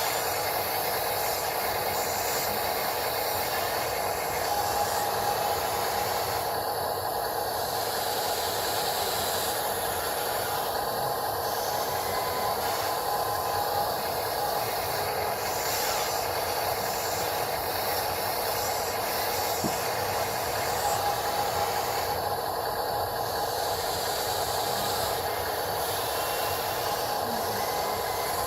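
Steady whine and hiss of an RC hydraulic machine's pump and motor running, with no breaks.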